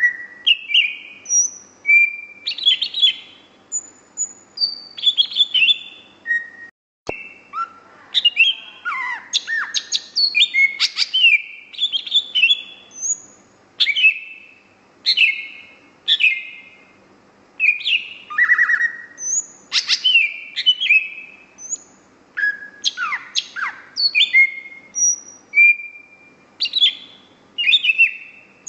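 Greater green leafbird (cucak hijau) singing in full, continuous song: a varied run of loud whistles, chirps and quick falling notes, phrase after phrase, broken once by a brief gap about seven seconds in.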